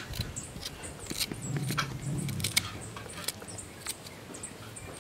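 A kitchen knife cutting up seasoning held in the hand over a metal pot of seasoned goat meat, making scattered light clicks and taps.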